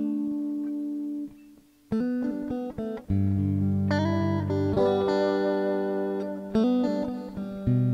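Instrumental music led by plucked guitar. It drops almost to silence about a second and a half in. Then it picks up again with a low bass line entering about three seconds in.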